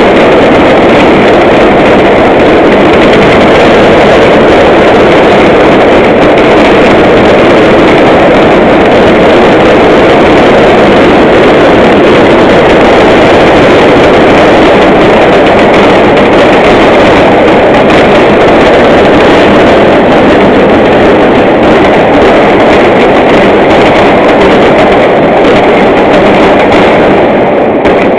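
Loud, steady engine-like noise with no distinct shots or bangs.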